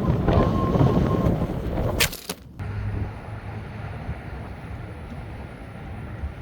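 Wind buffeting the microphone, then a sharp click about two seconds in, after which the sound drops to a quieter steady low rumble.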